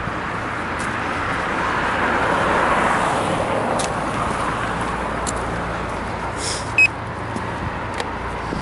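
Street traffic noise with a vehicle passing about three seconds in. One short, high electronic beep sounds a little before the end, the loudest thing heard.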